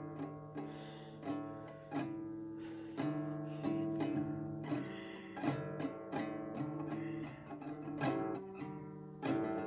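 Classical acoustic guitar strummed and plucked in an uneven rhythm, each chord ringing on after the strike.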